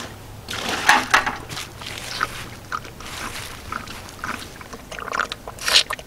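A small black pig drinking water from a plastic tub, slurping and lapping in short irregular gulps, with a couple of sharp clicks about a second in.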